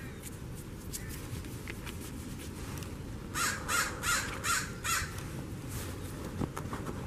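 A crow cawing five times in quick succession, about three calls a second, over a steady low background rumble.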